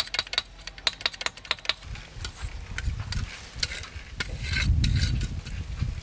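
Metal knife blade tapping and scraping on red clay bricks, a quick run of sharp clicks, followed about two seconds in by duller low scuffing and knocks of bricks being worked on dirt.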